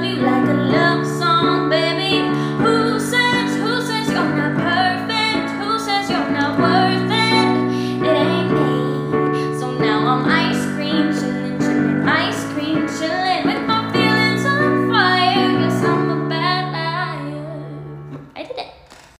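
A woman singing a pop-song mashup, accompanying herself with held chords on a keyboard. The music fades and stops near the end.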